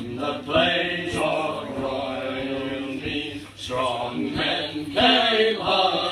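A group of men and women singing a folk song together, unaccompanied, in sustained drawn-out lines with short breaks between phrases.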